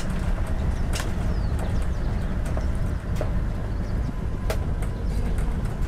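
Steady low rumble of a moving vehicle heard from inside the cabin, engine and tyre noise on a rural road, with a few short knocks and rattles.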